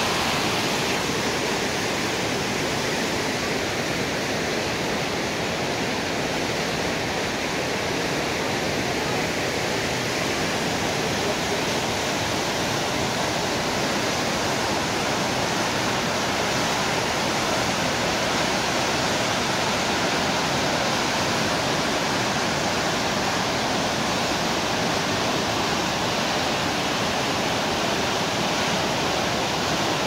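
The Rhine Falls, a wide river waterfall, rushing steadily: a constant, even wash of falling and churning white water.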